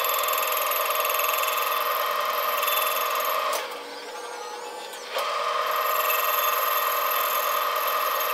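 Carbide tool taking a facing cut across a welded stainless steel impeller on a Monarch lathe, a steady high-pitched ring while the tool is in the cut. The ringing stops about three and a half seconds in, leaving only the fainter sound of the lathe running, then starts again about a second and a half later as the cut resumes.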